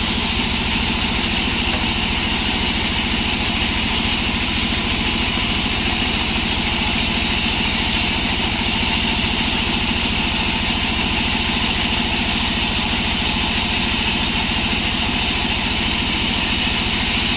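An engine running steadily at one constant speed, with no change in pitch or load.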